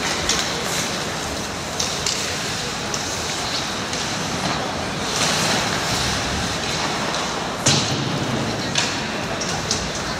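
Ice hockey play on a rink: skate blades scraping the ice, with scattered clicks of sticks and puck. One louder knock comes about three-quarters of the way through.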